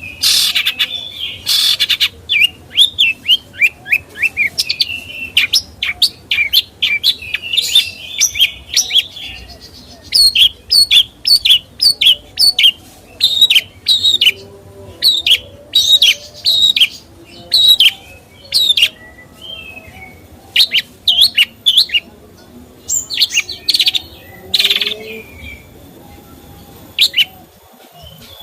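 A caged songbird singing a loud, chattering song of rapid, sharp chirps and quick trills, broken by short pauses.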